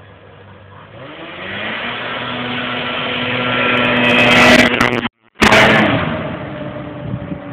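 A snowmobile engine approaching, passing close by and moving away. It grows steadily louder up to the pass, cuts out briefly in the recording, then fades as it goes off.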